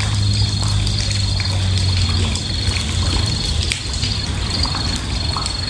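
Night-time outdoor ambience: insects chirping in a steady, evenly pulsing high tone over a noisy hiss, with a low hum that fades away about two seconds in.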